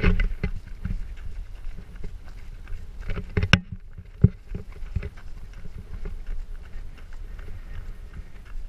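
Footsteps of several runners jogging on a dirt trail, picked up by a camera jostling along with them over a steady low rumble. Two sharp knocks stand out about halfway through.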